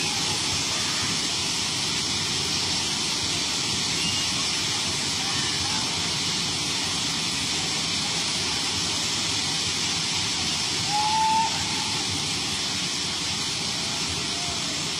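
Steady rushing hiss of heavy rain and floodwater while a suburban local train ploughs through water over the tracks. About eleven seconds in, a short pitched sound rises briefly over it.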